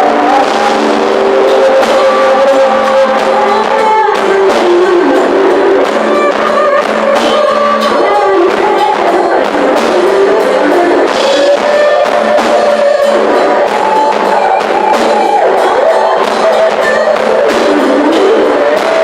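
A live worship band playing a song: singing over guitar and drum kit. It sounds thin, with almost no bass.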